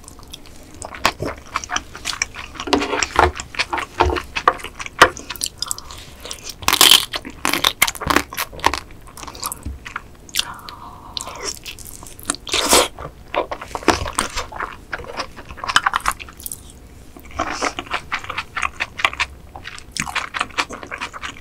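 Close-miked mouth sounds of eating marinated raw crab and rice: wet chewing and smacking with many short sharp clicks.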